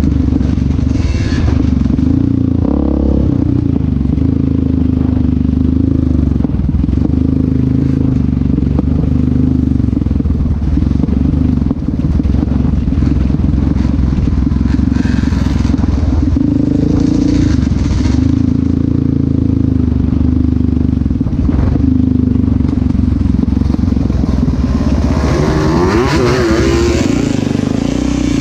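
Yamaha Raptor 700R's single-cylinder four-stroke engine running under throttle, its pitch rising and falling as the rider accelerates and eases off. A brief rush of noise comes near the end.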